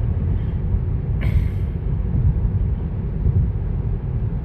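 Steady low tyre and road rumble heard inside the cabin of a Tesla Model 3 electric car cruising at about 65 mph.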